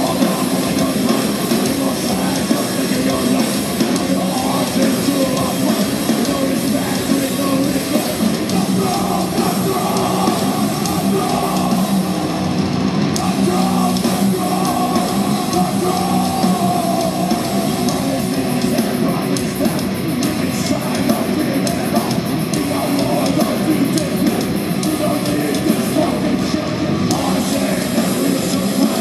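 Heavy metal band playing live and loud: distorted electric guitars over a drum kit, continuous throughout.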